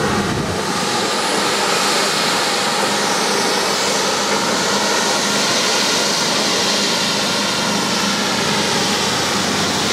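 Heavy paving machinery running steadily, led by a paver laying roller-compacted concrete: a constant, even engine-and-machine noise with no breaks.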